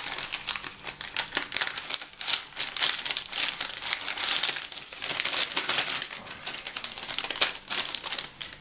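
Crinkling and rustling of an MRE flameless ration heater's plastic sleeve and the food pouch being handled, with dense, irregular crackles.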